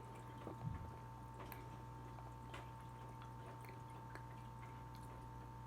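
Faint chewing of a soft, chewy candy, with scattered small mouth clicks and a low thump less than a second in, over a steady electrical hum.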